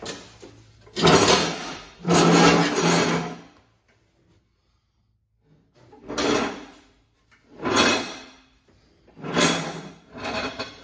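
A riding mower's metal cutting deck dragged and shoved across a concrete floor in a series of scraping pushes, each lasting up to about a second and a half, with a short pause near the middle.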